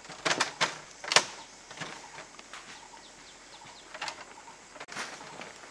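Several short, sharp scraping knocks in quick succession in the first second and a half, then two fainter ones later, as a supply box is hauled up a tree on a rope.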